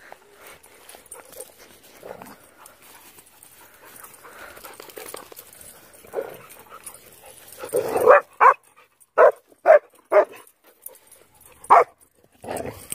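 Dog barking: about six short, sharp barks in the second half, some in quick pairs, after several seconds of faint rustling. The barks come while the dogs play together.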